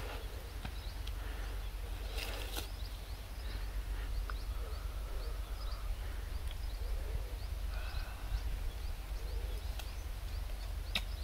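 Birds chirping and calling here and there over a steady low rumble, with a brief rustle about two seconds in.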